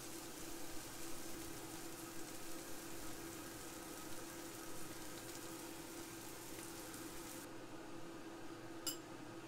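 Quiet kitchen room tone: a steady hiss over a low hum. The hiss drops away abruptly about three-quarters of the way through, and there is a single light click near the end.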